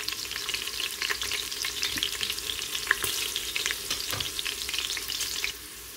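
Chopped garlic and chillies sizzling in hot oil in a stainless steel pressure cooker, a steady crackle of many tiny pops that turns quieter shortly before the end.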